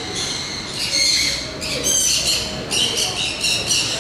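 Birds calling: a rapid run of short, high chirps and squawks, one after another, over a faint low murmur.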